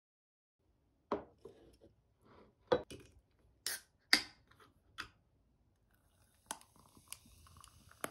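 Drink can and glass handled on a table: a run of sharp knocks and clinks, then a drink poured from a can into a glass of ice, with a steady hiss and a few clinks.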